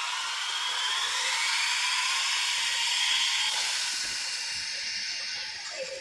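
Electric BuWizz motors and plastic gearing of a remote-control LEGO Technic car whining as it accelerates, the pitch rising during the first second or so, then running steadily before dropping away at the very end.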